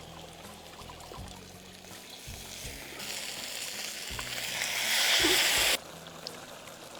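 Fish frying in hot oil: a sizzle that starts about three seconds in, grows louder and cuts off sharply a little before the end, over soft background music.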